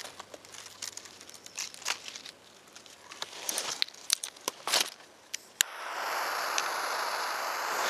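Rustling and crunching of leaves and twigs underfoot and in the hand. Then a sharp click about five and a half seconds in, and the steady hiss of a jet torch lighter's flame held to a firework fuse.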